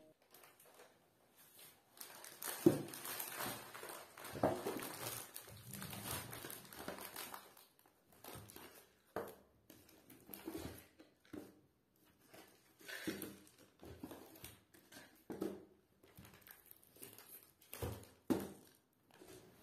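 Groceries being unpacked from a cloth shopping bag: the bag and packaging rustle, and plastic instant-noodle cups are set down on a hard counter with light knocks, about six times.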